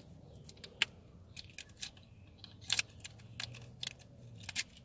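A bunch of keys jangling, with a scatter of short sharp clicks, as the key is worked in a Holden VY Commodore's ignition lock.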